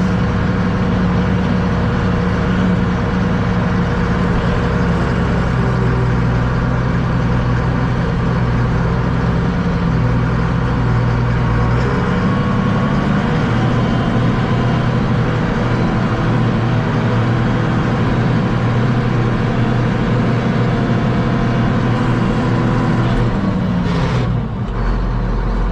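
A vehicle engine running steadily, its pitch shifting a few times; near the end it drops to a lower rumble.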